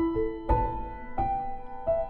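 Background music: a slow, gentle piano melody of struck notes, each held and left to fade.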